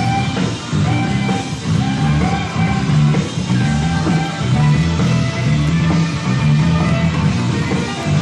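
Live rock band music from a concert recording, with a strong, moving bass line under guitar and other instruments.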